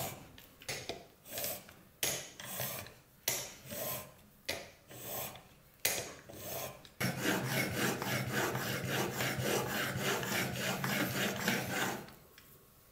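A chisel's steel edge, clamped in a roller honing guide, scraping back and forth across a diamond sharpening stone while a secondary bevel is honed. Single strokes come about one or two a second at first, then about halfway through it turns to quick continuous rubbing, which stops shortly before the end.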